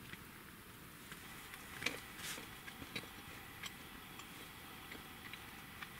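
Faint, irregular small clicks and taps of a hand picking at a small bowl of snacks on a table, with a couple of louder taps about two seconds in.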